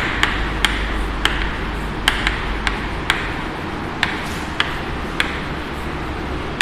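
Chalk writing on a blackboard: irregular sharp taps, about two or three a second, with faint scratching between them over a steady low room hum.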